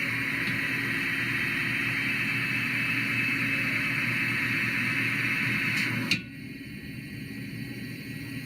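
Hardinge GT 27 gang-tool CNC lathe running, with a steady hiss over a low hum. About six seconds in, a sharp click comes and the hiss cuts off suddenly, leaving a quieter machine hum.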